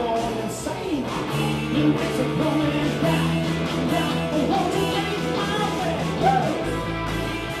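Rock band playing live in a room: electric guitar, bass guitar and drums together in a loud, continuous passage of the song.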